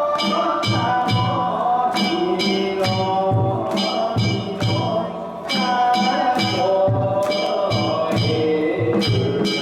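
Danjiri festival music: metal hand gongs clanging in a quick, steady rhythm over taiko drum beats, with a wavering melody carried above.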